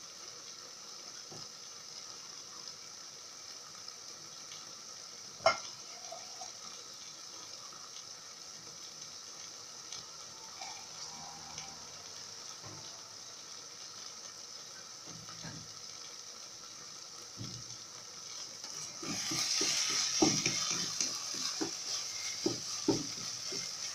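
Bulgur with tomato, onion and spices sizzling steadily in a stone-coated pot, with one sharp click about five seconds in. From about nineteen seconds in, a wooden spatula stirs and scrapes the bulgur against the pot, with many small knocks.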